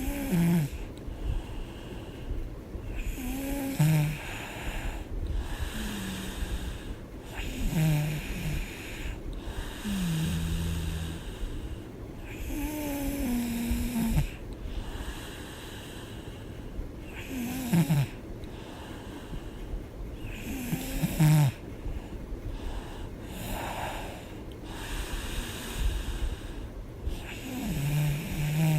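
A woman snoring in her sleep: a short snore with a wavering pitch on the breaths, recurring irregularly about every three to four seconds, with noisy breathing in between.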